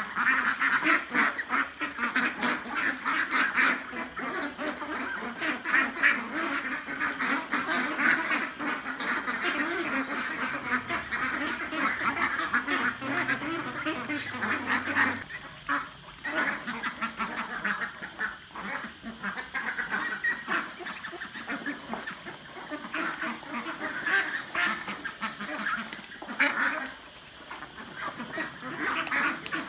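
A flock of 40-day-old ducks quacking and chattering without pause while they feed, many short calls overlapping. Louder in the first half, a little quieter after the middle.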